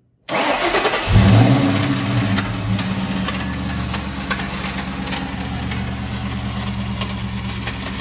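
Ford Mustang Bullitt's 4.6-litre V8 cranked by the starter and catching about a second in, flaring briefly and then settling to a steady idle. A horrendous noise with irregular sharp clicks runs over it: the starter not fully disengaging and dragging on the flywheel.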